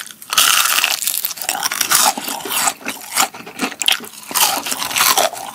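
Crispy fried chicken coating, re-crisped in an air fryer, crunching as it is bitten and chewed: a rapid run of crunches.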